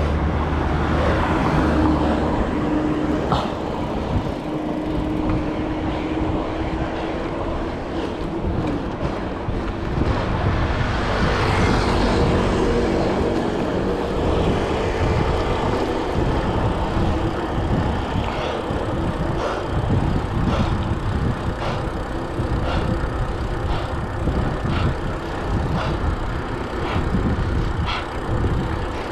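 Urban road traffic: motor vehicles running close by, with a steady rush of road noise and scattered sharp clicks.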